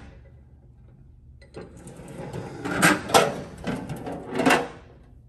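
Metal tool chest drawers sliding on their runners, one shut and another pulled open, starting about a second and a half in, with several louder knocks along the way.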